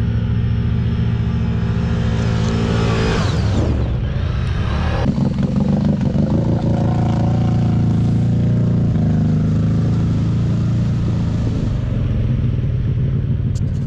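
Quad bike (ATV) engine running steadily, with a rising rev about three to four seconds in and an abrupt change in the sound about five seconds in.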